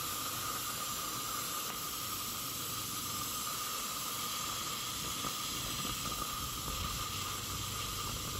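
Steady hiss of steam from a gas-fired live-steam model locomotive with its regulator open and a thin steady tone through it. Steam is passing into the cold cylinders and condensing there, before the wheels start to turn.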